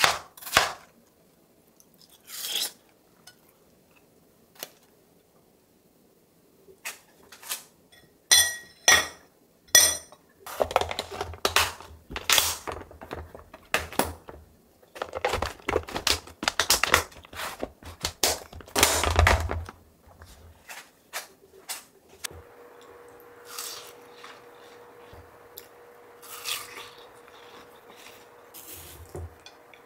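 A few knife strokes through watermelon on a cutting board, then plastic food-storage containers being handled and packed, with a quick run of clicks as their lids are snapped shut. Later an electric fan runs with a steady hum.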